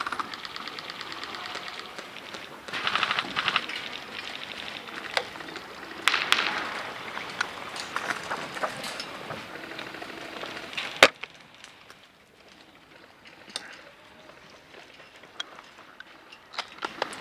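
Airsoft guns firing rapid full-auto bursts, heard as fast strings of clicks, with one sharp loud click about eleven seconds in. After that it is quieter, with only a few scattered clicks.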